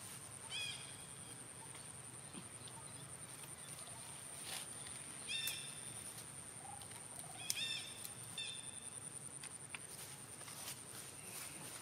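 Four short, high chirping animal calls, each rising then falling in pitch, over a steady high-pitched whine.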